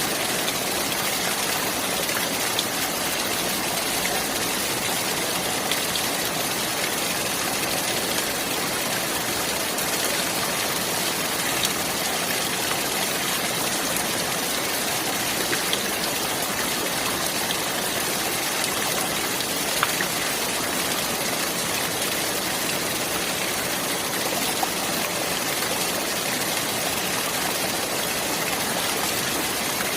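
Running water rushing steadily, an even hiss with a few small splashes or drips standing out here and there.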